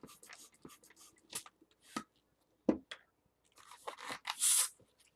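Latex twisting balloon being handled: scattered rubbing and scraping noises, with a short rushing noise about four seconds in.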